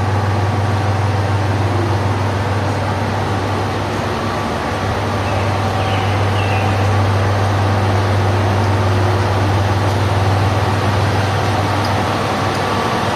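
Tosa Kuroshio Railway 9640 series diesel railcar standing at the platform with its diesel engine idling: a steady low drone with a constant hum and no change in pitch.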